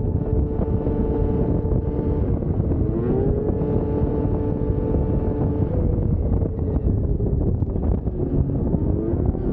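2001 Yamaha VMAX 600's three-cylinder two-stroke engine running as the snowmobile moves along the trail. Its pitch climbs as the throttle opens about three seconds in and again near the end. Heavy wind rumbles on the microphone.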